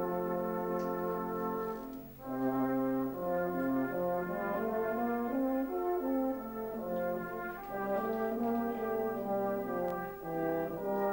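Euphonium playing a slow solo melody of held notes over a brass band's sustained chords, with a brief break about two seconds in.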